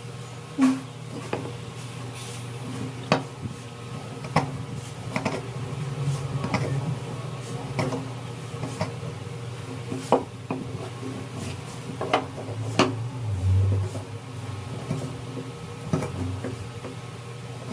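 Irregular sharp taps and knocks of hand tools working wood, about one a second, over a steady low hum.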